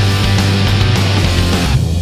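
Loud heavy rock intro music with electric guitar and bass; near the end the dense upper layer drops away, leaving the bass line and a lighter guitar part.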